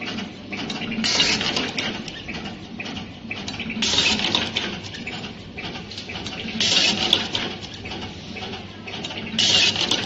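Automatic wire cutting, stripping and crimping machine cycling: a short hiss repeats four times, about every three seconds, with clattering of the mechanism in between.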